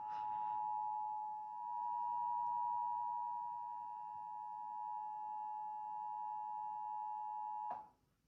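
Emergency Alert System two-tone attention signal: two steady tones near 1 kHz (853 and 960 Hz) sounding together, held for about eight seconds and cutting off abruptly near the end. It heralds the spoken emergency alert message that follows.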